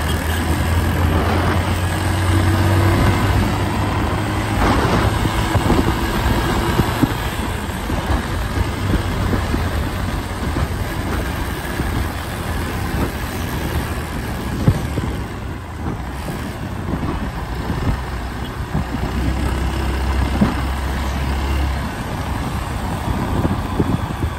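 Road traffic heard from a vehicle moving along a busy city road, with the engines of motorcycles, buses and cars making a continuous noise. A low engine drone is strongest for the first several seconds and again briefly near the end.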